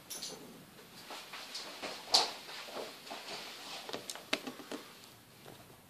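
A person moving about a small room: scattered soft knocks and shuffles, with a sharp click about two seconds in and a couple more near the four-second mark.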